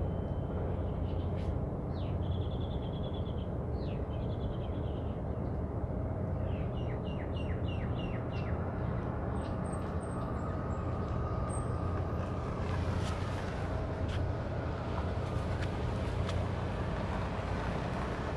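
Steady low outdoor rumble with small birds chirping in short runs of quick notes during the first half. A car drives past near the end.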